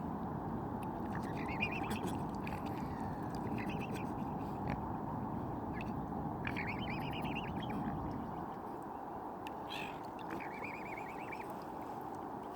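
A small bird calls in short, rapid chattering phrases, four times over about twelve seconds, above a steady low rushing background noise.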